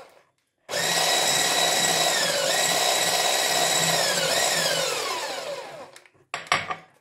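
Electric stick blender with a whisk attachment starting up under a second in and running steadily, whisking cake batter in a plastic bowl; its whine dips briefly twice, then falls in pitch as it winds down near the end. A few sharp knocks follow.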